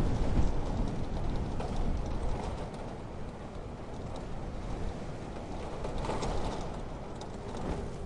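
Stormy winter weather ambience: steady wind noise, heavy in the low end, with light pattering ticks over it. It swells briefly about six seconds in.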